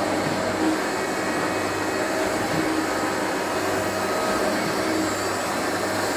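3L722V surface grinder running with a steady, even mechanical whir.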